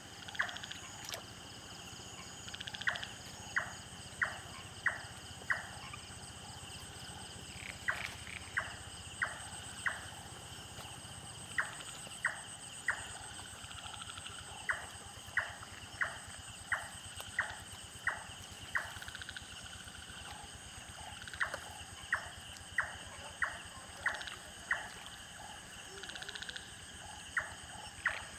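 Night insects chirring steadily, with runs of sharp, evenly spaced knocking calls from a night-calling animal, about one and a half a second in groups of several, with pauses between the runs.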